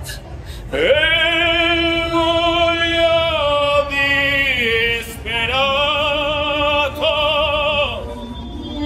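A solo singing voice in operatic style, holding long notes with vibrato in two phrases, with a short break about halfway through.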